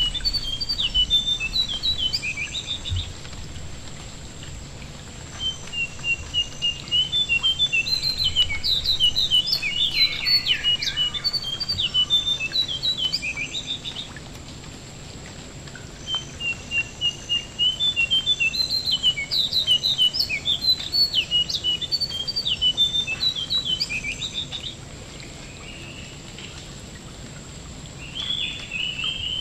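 Jongkangan (ashy tailorbird) singing in three long bouts of rapid, high chirps and trills separated by short pauses, with a brief call near the end. Steady light rain patters on water underneath.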